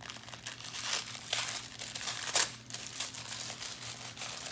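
Gift wrapping paper crinkling and rustling in irregular bursts as a small wrapped package is unwrapped by hand, with the sharpest rustle about two and a half seconds in.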